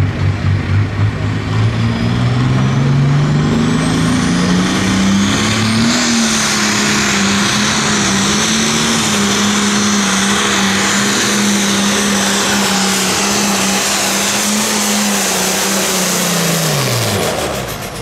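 Hot farm tractor's engine pulsing, then revving up over the first few seconds and held at high, steady revs under load through a pull. It is throttled back and its pitch falls away near the end.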